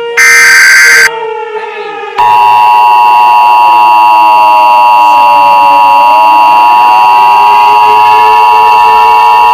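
Emergency Alert System tones: a last loud, harsh data burst of the header, then about two seconds in a loud, steady attention tone that holds to the end. Under it a fainter siren-like tone glides slowly down and back up.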